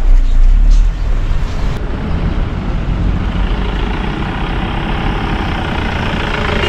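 Motor vehicle driving on a rough road: steady engine and road rumble, with a heavy low buffeting in the first second or two before it settles.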